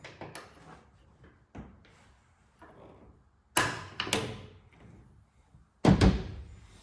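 Pickup tailgate being worked: a few light clicks and knocks, then two loud clunks, and a hard double slam near the end.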